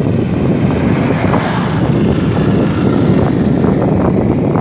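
Loud, steady rumble of wind buffeting a handheld phone's microphone while riding along a road, mixed with the vehicle's running noise.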